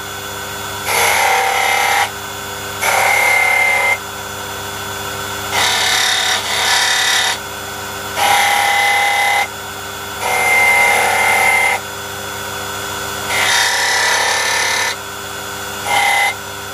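Small rotary tool cutting a notch into a wooden model-ship bulkhead. The motor runs steadily, and the cutting noise with a high whine rises in about eight passes of roughly a second each.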